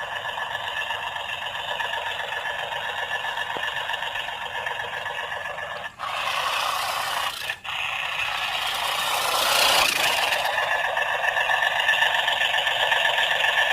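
Mahindra Oja remote-control toy tractor running, a steady, thin, tinny mechanical whir. It turns harsher for a few seconds in the middle, with two brief cut-outs about six and seven and a half seconds in.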